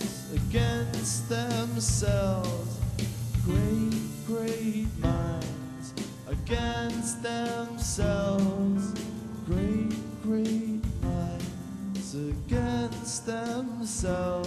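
Live concert performance of a pop song: a voice singing a melody over full band accompaniment.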